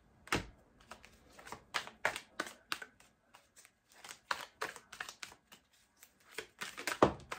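Tarot cards being shuffled by hand: a run of short, irregular card clicks and slaps, with a louder thump just after the start and another near the end.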